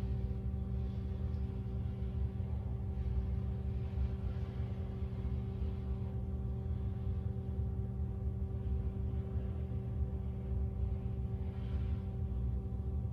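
A steady low hum holding a few constant pitches, with soft hissy swells now and then.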